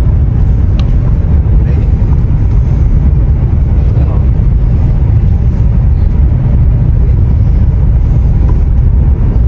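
Steady low rumble inside the cabin of a high-speed bullet train running at about 350 km/h.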